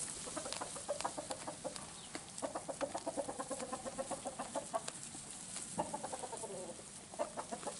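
Cameroon sheep chewing hay close up: a quick, irregular crunching and clicking. Behind it, pulsing animal calls come in twice, the first lasting over a second.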